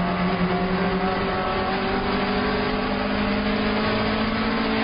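Alfa Romeo 1750 GTV's twin-cam four-cylinder engine heard from inside the cabin, pulling hard under race acceleration, its pitch climbing steadily, over road and wind noise.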